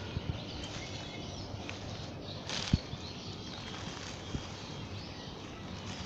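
Outdoor ambience among grass and weeds: faint bird calls over a steady background, a brief rustle of grass about two and a half seconds in, then a dull thump just after it and another about four seconds in.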